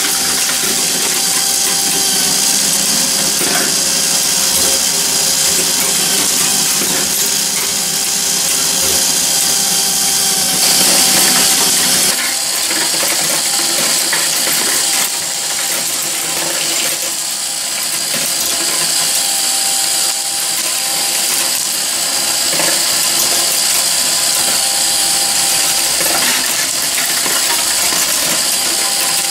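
Meccano marble machine running: a steady mechanical whir of turning shafts, pulleys and gears, with marbles clicking and clinking against the metal parts. The sound mix changes at a cut about halfway through.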